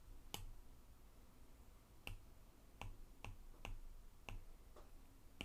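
Faint, irregular taps on an iPad screen while sketching on it, about eight short clicks spread unevenly across a few seconds.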